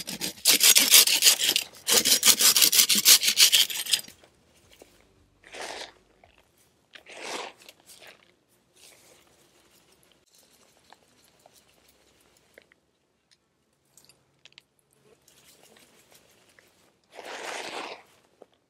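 A pruning saw rasps down the resinous outer layer of a grass tree trunk in rapid back-and-forth strokes, shaving the resin off, for about four seconds, then stops. After that there are only a few brief soft rustles of fern fronds being worked over the loose resin.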